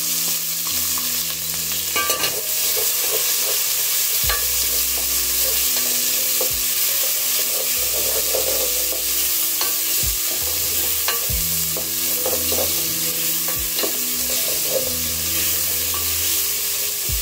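Sliced red onions sizzling in hot oil in a metal pot, stirred with a wooden spoon that scrapes and knocks against the pot now and then.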